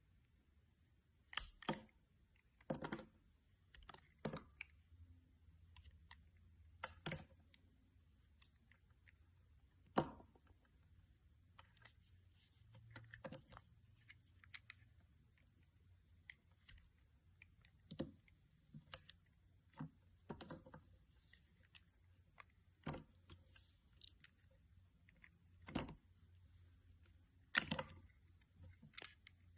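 Irregular, scattered clicks and taps from hands handling small plastic toys and craft materials, with quiet handling noise between them.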